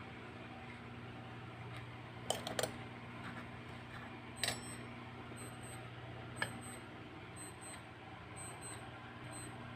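Small metal clinks of a miniature steel serving spoon against a tiny steel pan and bowl: two close together about two and a half seconds in, one near four and a half seconds and a lighter one around six and a half seconds, over a faint steady hum.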